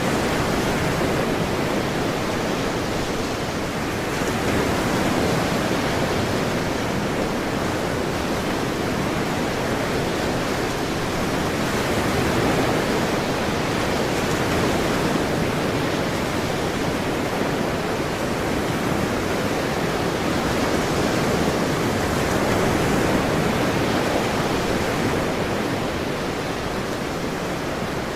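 Ocean surf washing in steadily, a continuous rush with gentle swells in loudness every few seconds as waves roll in.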